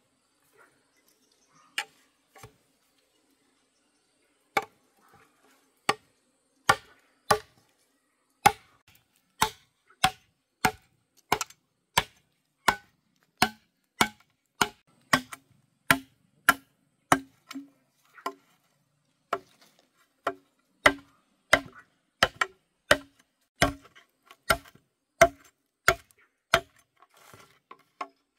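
Knife chopping on a wooden cutting board: a couple of strokes, a short pause, then steady, even chopping at about one and a half strokes a second.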